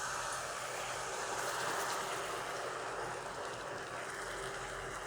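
Tamarind extract sizzling and bubbling as it hits a pan of hot oil and tempering spices: a steady hiss.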